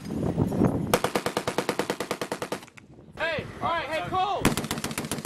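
Belt-fed machine gun firing two long automatic bursts of about eleven shots a second, with a short pause between them.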